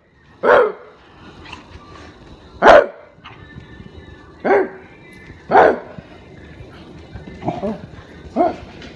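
A rottweiler barking: single loud barks spaced a second or two apart, about six in all.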